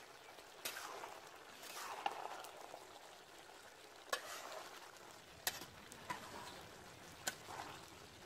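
Long metal ladle stirring vegetable curry in a large metal pot, clinking sharply against the pot about six times over a faint, steady simmering hiss.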